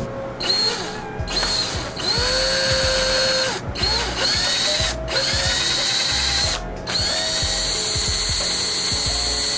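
Cordless drill boring a pilot hole into a stripped hard-steel bolt, run in a series of pulls on the trigger with short pauses between, each run starting with a rising whine that then holds steady.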